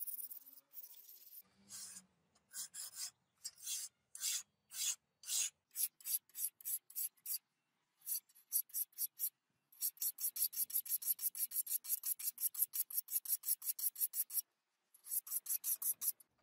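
Hand-held sharpening stone rubbed along a pattern-welded steel sword blade, each back-and-forth pass a short rasping hiss. The strokes come about two a second at first, then much faster, about five a second, in the second half, in runs broken by short pauses.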